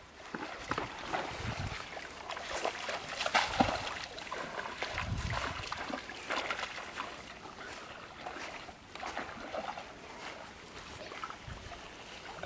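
Shallow stream water splashing and sloshing as people wade through it and push bamboo cone fish traps down into the water, with the loudest splashing about three and a half seconds in.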